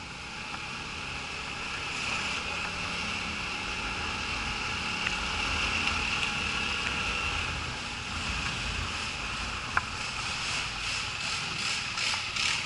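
Motorcycle riding noise picked up by a camera on the moving bike: wind rush over the microphone with the engine running underneath. A single sharp click comes about ten seconds in, and the noise pulses rapidly near the end.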